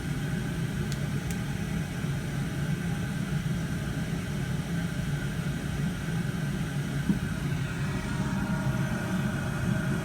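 Oil-fired furnace running steadily, burner and blower making a continuous low rumble. It is staying on now that a loose W wire on the control board has been secured; the loose wire had made it cycle on and off.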